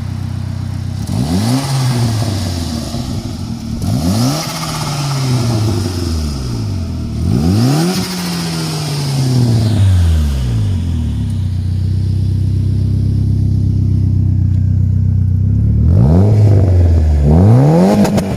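Turbocharged Saab B204 four-cylinder engine in a Corsa B revved hard about five times, each time quickly rising and then falling back, with turbo hiss and flutter as the throttle closes. It idles steadily for several seconds before the last two revs near the end.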